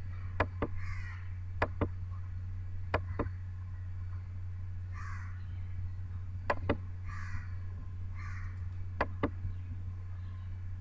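Computer mouse clicks, five pairs about a quarter-second apart, the loudest sounds here, over a steady low hum. A bird calls several times in the background with short rasping calls.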